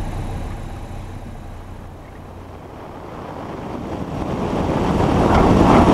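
Piper Warrior rolling down the runway on a touch-and-go: a steady rushing of wind and rolling noise that eases slightly, then grows steadily louder over the last two seconds.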